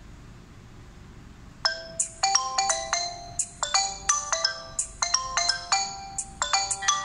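Smartphone ringtone for an incoming call: a quick melody of short ringing notes that begins about a second and a half in, after faint hiss.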